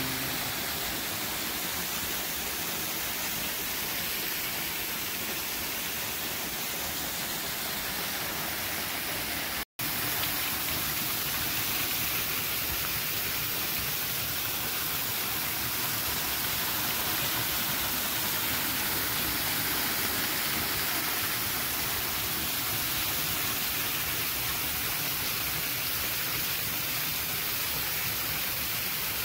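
Waterfall close up, water spraying down over rock ledges and splashing onto stones: a steady, even rush. It drops out to silence for a split second about ten seconds in.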